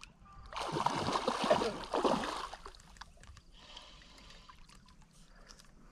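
Hooked rainbow trout splashing at the water's surface near the bank while being reeled in: a loud run of splashes lasting about two seconds, followed by fainter splashing.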